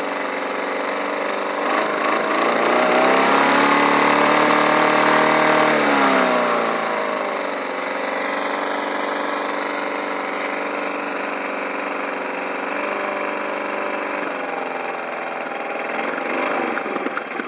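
Petrol lawn mower engine running. It revs up about two seconds in, holds the higher speed for a few seconds, then drops back to a steady lower speed. It runs unevenly with a few sharp pops near the end, while the owner has it backfiring.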